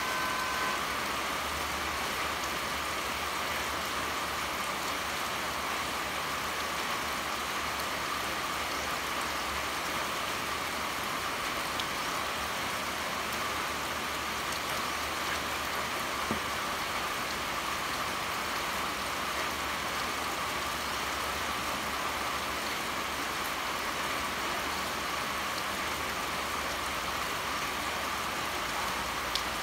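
Steady pouring rain: an even, unbroken hiss with now and then a single faint tick of a drop.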